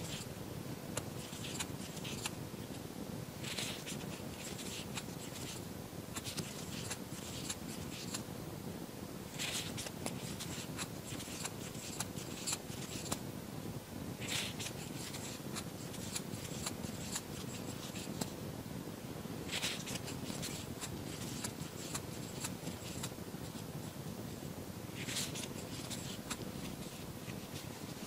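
Soft scratchy rustling of yarn being worked with a crochet hook, in short spells every few seconds over a steady room hiss with a faint hum.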